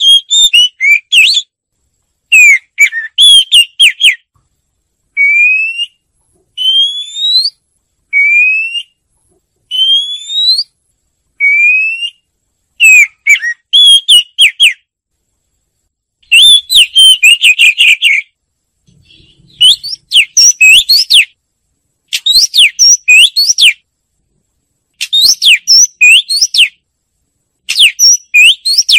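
Oriental magpie-robin singing loud, whistled phrases of quick, varied notes, with a run of single rising whistles repeated about every second and a half in the middle.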